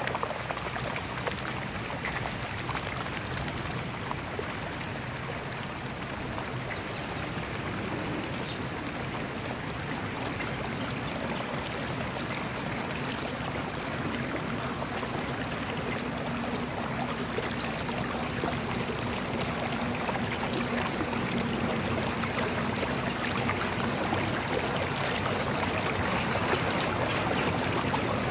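Sea Ray bowrider moving in at idle speed, its engine giving a low hum under the splash and lapping of water along the hull. It grows slowly louder as the boat comes closer.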